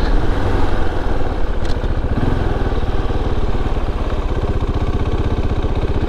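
KTM 690 Enduro R's single-cylinder engine running at low, steady revs, a rapid, even chug of firing pulses.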